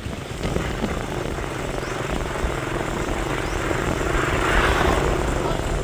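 Motor vehicle running, engine and road noise growing louder to a peak about four to five seconds in.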